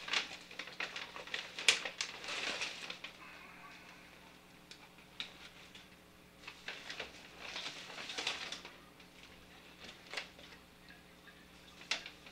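Paper takeout bag rustling and crinkling as cardboard food boxes are lifted out of it and set down on a countertop, with a few light knocks.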